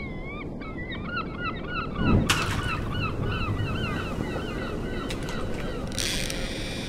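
Gulls calling over and over in quick repeated cries, each dipping and rising in pitch, over a steady low rush of noise. A low whoosh swells about two seconds in, and a high hissing buzz starts near the end.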